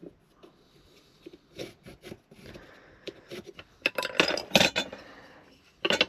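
Scattered knocks, taps and clinks of wooden frame pieces and tools being handled and set down on a work surface, louder in a cluster a little past the middle and once more near the end.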